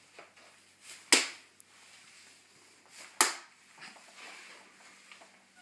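Two darts thudding into a dartboard, two sharp hits about two seconds apart, with a few faint knocks in between.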